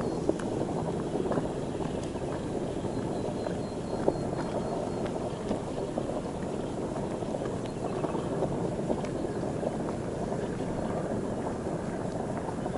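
Steady rushing wind noise on the microphone, with a few faint clicks.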